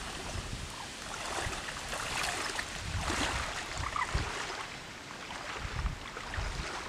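Wind blowing over a reed marsh: a steady rushing hiss, with gusts buffeting the microphone in a few low thumps near the end.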